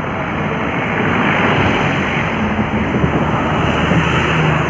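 Heavy diesel truck engines working under load as a loaded truck is towed slowly, a dense rushing noise with a low engine note that rises and falls.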